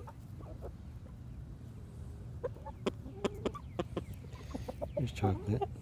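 Chickens clucking, a run of short clucks in the middle, with a word spoken near the end.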